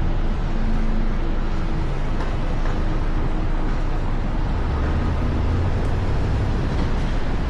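Steady rumble and road noise of a moving vehicle, strongest in the low end, with no breaks or sudden sounds.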